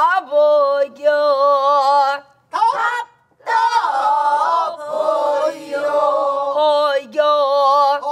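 A woman sings a pansori phrase solo in a strained, throaty voice with wide, wavering vibrato. From about three and a half seconds in, a mixed class of men and women sings the phrase back together in the same style.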